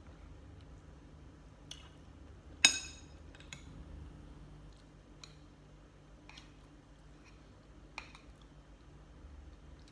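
Metal spoon clinking against a small glass of yogurt while scooping from it: about eight light taps, with one loud, ringing clink between two and three seconds in.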